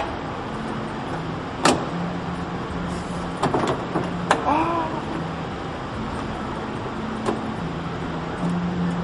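Sharp, separate clicks and snaps of a pickup truck's interior door panel being pried off, its plastic retaining clips popping loose, with the loudest snaps about two and four seconds in.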